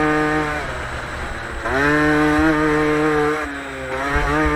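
Motocross bike engine revving hard under throttle: the pitch climbs and holds, drops as the throttle is backed off, climbs again, eases off, and rises once more near the end.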